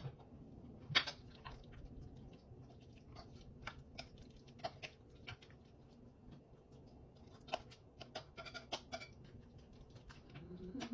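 Scattered soft wet clicks and taps of marinated chicken pieces being handled in a perforated stainless steel grill basket and dabbed with a silicone basting brush. The sharpest tap comes about a second in, with a quick run of them later on.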